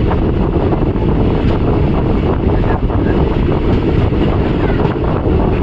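Steady running noise of a moving passenger train heard from on board, with wind buffeting the microphone.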